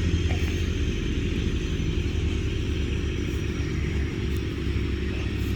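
A motor engine running steadily with a low rumble.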